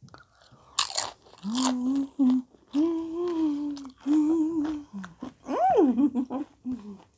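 A woman humming long closed-mouth "mmm"s of enjoyment while eating, in several held notes with a rising-and-falling swoop near the end. A short crunch of a bite into a tortilla chip comes about a second in.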